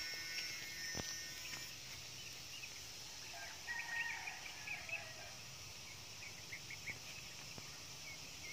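Faint rural outdoor ambience: a steady high insect hum with scattered short bird chirps, and a single click about a second in.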